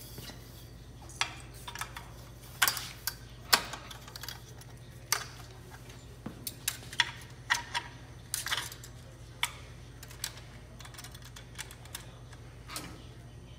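Slotted metal retaining strap being fitted back over the studs of a scrubber-sweeper's rubber squeegee blade: a run of irregular light metallic clicks and clacks, with a low steady hum underneath.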